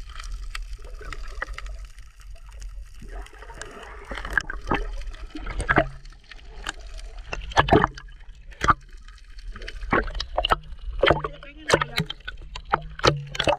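Water sloshing and splashing, with many short sharp knocks scattered through it and a steady low rumble underneath.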